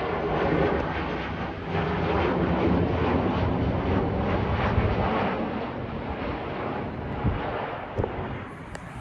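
Loud rumble of a passing vehicle, easing off over the second half, with a couple of short knocks near the end.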